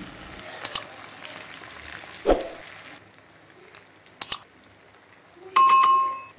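Cauliflower pieces deep-frying in oil, a faint steady sizzle that drops lower about three seconds in, with a few sharp clicks along the way. Near the end a bell-like chime sound effect rings for just under a second and is the loudest thing heard.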